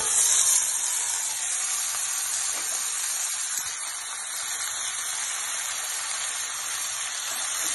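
Marinated chicken pieces sizzling in hot oil in a pressure cooker: a burst of sizzle as they go in, settling into a steady hiss.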